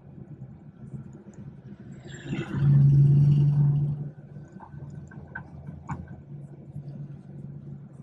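BMW 440i's B58 turbocharged straight-six running at a steady cruise, heard from inside the cabin as a low, even drone. About two and a half seconds in it grows much louder for about a second and a half, then settles back to the steady drone.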